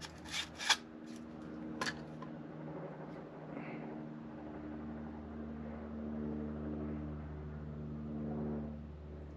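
Three sharp metal clicks from a band-type piston ring compressor being worked on a piston, then a steady mechanical hum with a low drone.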